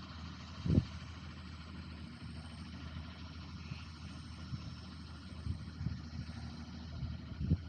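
A farm machine's engine running steadily at a low hum, with a short low thump about a second in and another near the end.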